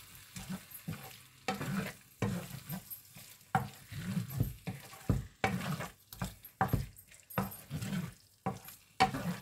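Wooden spatula stirring and scraping potato chunks and green peas through a thick spice masala in a white nonstick frying pan: uneven scraping strokes, a little more than one a second.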